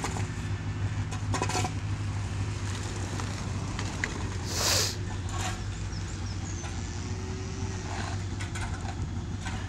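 A vehicle engine running steadily with a low hum, with a few short scuffs and a brief hiss about halfway through.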